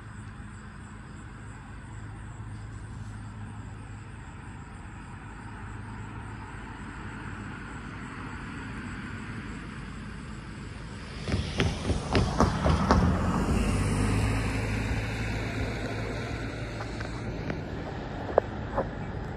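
Road traffic: a steady low hum, then a vehicle passing close by. It swells suddenly about eleven seconds in, with a few sharp knocks, and fades slowly.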